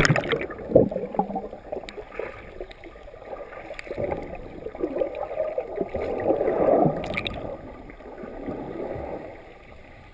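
Muffled underwater sound from a camera below the sea surface: bubbling and gurgling water, starting with the end of a splash as the camera goes under.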